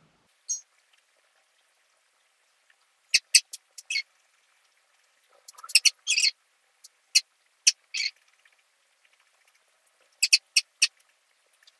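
Sharp clicks from working a computer, in small scattered groups of a few at a time.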